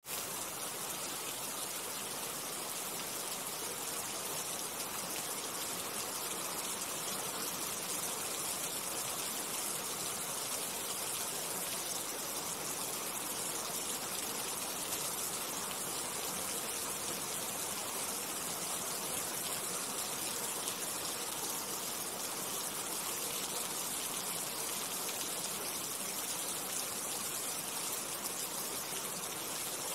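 Steady rain falling, an even, unbroken hiss of water.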